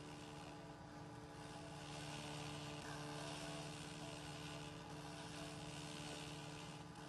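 Handheld 100 W pulsed fiber laser cleaner ablating white paint off a wooden window frame: a steady hiss that comes in about two seconds in and drops away near the end, over a steady low hum.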